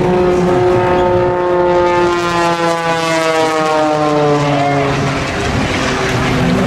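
Propeller engine of an aerobatic biplane passing by, its drone sliding steadily down in pitch as it goes past, over gusty wind noise.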